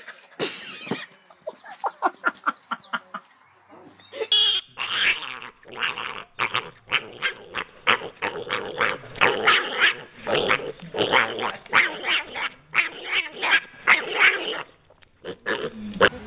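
A piglet calling in a fast run of short, loud squeals, several a second, for about ten seconds. Before it come a few seconds of scattered short clicks and knocks.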